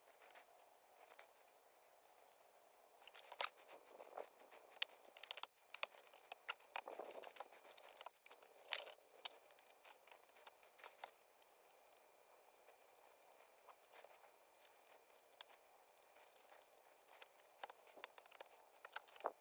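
Faint scattered clicks, scrapes and crackles of a Dell XPS 12's laminated touchscreen panel being pried and lifted out of its display frame, busiest in the first half and sparse later.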